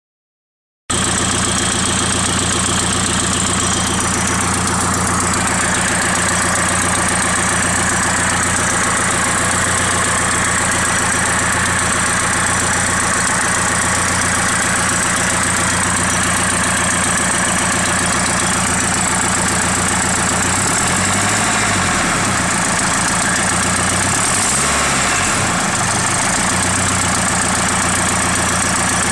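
Nissan SR20DET turbocharged 2.0-litre inline-four idling steadily, with a noise the owner says sounds like an exhaust leak. The engine note wavers briefly twice near the end.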